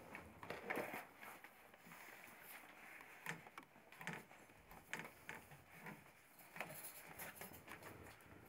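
Faint, irregular rustling and soft clicks of wolf pups shifting about on a towel and newspaper.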